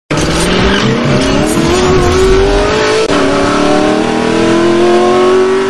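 Car engine accelerating hard as an intro sound effect: the engine note climbs, breaks off briefly about three seconds in, and climbs again.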